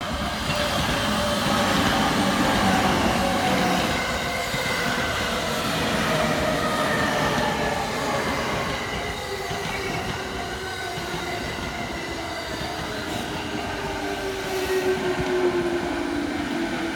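E217-series electric commuter train passing close by and slowing for the station, its motors whining in several tones that slowly fall in pitch over the wheel and rail rumble.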